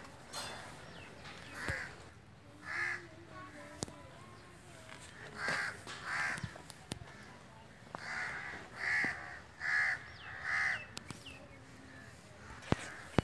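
Crows cawing, about eight short calls in loose groups, with a few sharp clicks in between.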